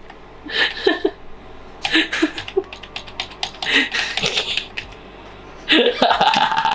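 A run of quick computer keyboard clicks in short groups as the photos are paged through, mixed with brief vocal sounds from a person; near the end comes a held vocal sound about a second long.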